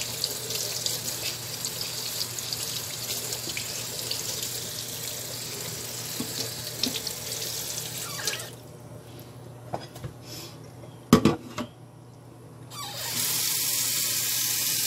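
Kitchen tap water running into a sink as carrots and potatoes are washed; the running water stops about eight seconds in. A couple of sharp knocks follow, and a steady hiss starts near the end.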